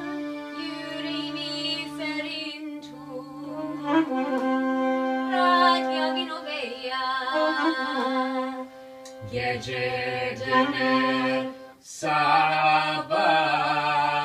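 Small acoustic band playing a tune together: saxophone, clarinet, trumpet and accordion holding and trading melody notes over a double bass. A brief break in the playing comes near the end before the ensemble comes back in.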